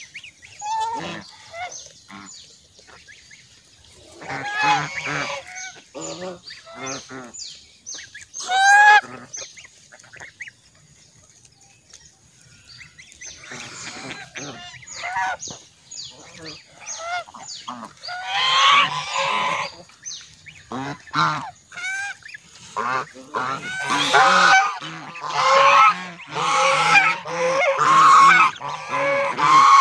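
A flock of white domestic geese honking, many short calls one after another, with a quieter lull a third of the way in and denser, louder honking over the last several seconds.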